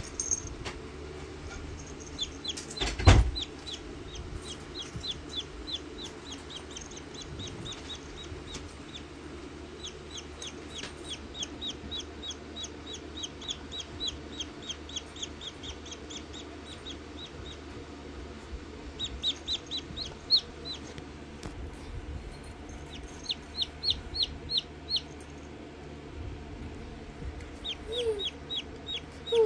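Newly hatched Rhode Island Red chick peeping: runs of short, rapid falling chirps, in bursts broken by pauses. A single loud thump about three seconds in.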